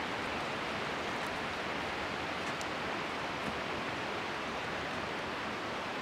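Steady rushing hiss of a nearby mountain stream, even and unbroken.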